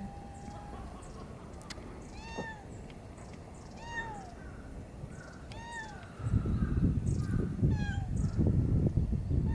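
Cat meowing: about five short, high rising-and-falling meows spaced a second and a half to two seconds apart. About six seconds in, a loud low rumbling noise starts and becomes the loudest sound.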